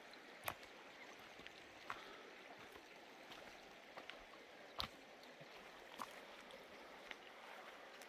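Faint, steady rush of a river flowing past its grassy bank, with a few sharp clicks scattered through it; the loudest comes a little under five seconds in.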